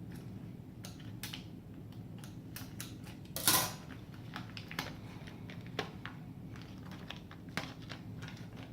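Scattered clicks and light clatters of small hard parts and packaging being handled, with one louder knock about three and a half seconds in.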